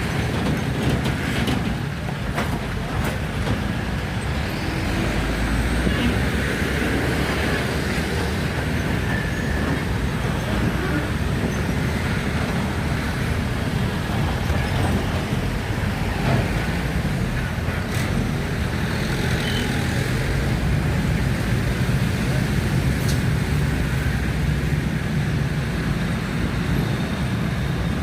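Steady road traffic: a continuous rumble of vehicle engines and tyres, with a few short clicks and knocks.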